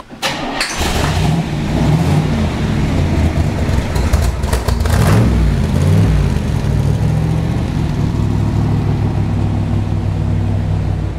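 1966 Corvette's 427 cubic-inch big-block V8 on a cold start: a brief crank, then it catches under a second in. It revs up and down twice about four to five seconds in, then settles into a steady idle.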